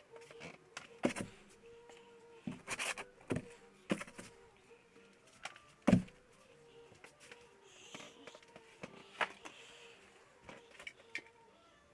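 Scattered knocks, scrapes and rustles from a painter moving around and handling painting gear, with one loud thump about six seconds in.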